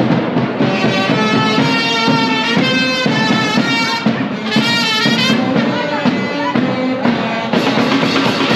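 Instrumental music: a melody of held notes changing in steps over a lower accompaniment.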